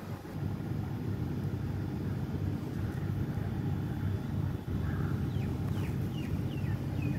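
A steady low rumble throughout. From about five seconds in, a bird calls over it in a quick series of short, downward-sliding chirps, about two or three a second.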